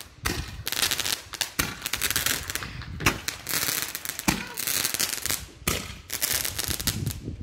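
Small consumer aerial firework going off in a series of shots, a sharp pop about every second and a half, each followed by about a second of crackling hiss from the burst.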